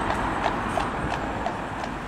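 Horse's shod hooves clip-clopping on the road at an even pace, about three strikes a second, fading as it moves away, over steady traffic noise.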